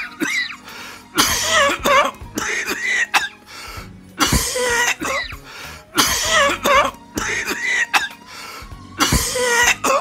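A woman coughing hard in about five fits from smoking a blunt, over background music.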